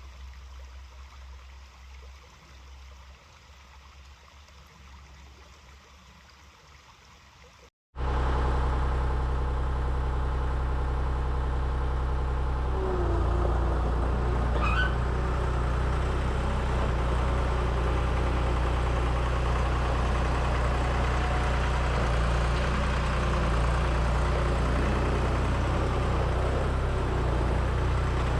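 Skid steer engine running steady and loud. For about the first eight seconds there is only a fainter low hum; then the sound cuts off abruptly and the engine comes in loud.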